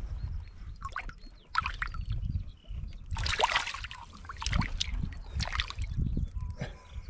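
Shallow rock-pool water splashing and sloshing in irregular bursts as a hand holds a pollock in it to let it go.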